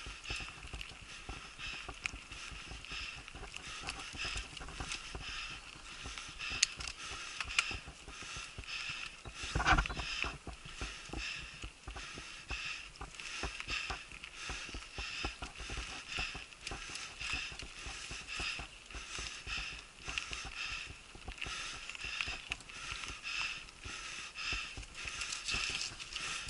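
Mountain bike ridden along a bumpy dirt singletrack: a continuous stream of irregular rattles and knocks from the bike and camera mount jolting over the ground, with a heavier thud about ten seconds in.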